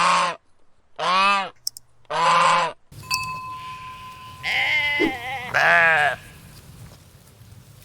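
Goose honks, three loud calls about a second apart, then two quavering bleats from a sheep or goat over a faint steady hiss.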